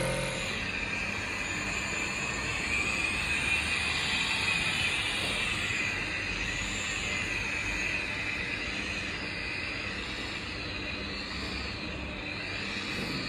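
Electric rotary polisher with a wool buffing pad running against a freshly painted tractor panel, buffing the new paint to a shine. Its motor whine rises and falls a little as the pad is worked over the panel.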